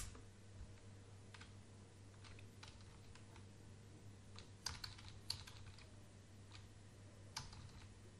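Faint, scattered single key presses on a computer keyboard, irregular rather than a run of typing, with a few sharper clicks about halfway through and near the end, over a faint steady low hum.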